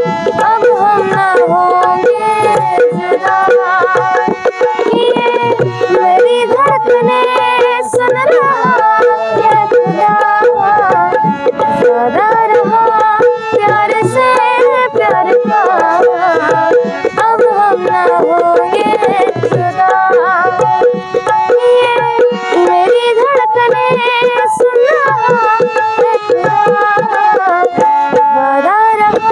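Instrumental music: a dholki drum playing a steady rhythm under a bending, pitched melody line.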